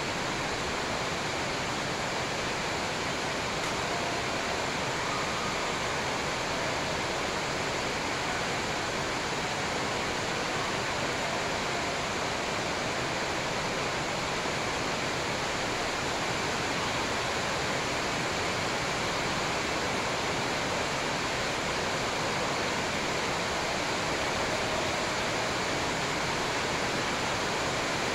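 Steady, even rushing noise with no distinct hits or voices standing out from it.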